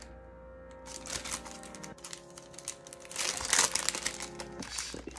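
Clear plastic packaging of a paint brush set crinkling as it is handled, in quick crackly bursts from about a second in, loudest just past the middle, over soft background music with held chords.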